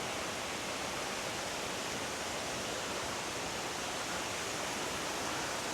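Thi Lo Su Waterfall's falling water: a steady, even rush that does not change.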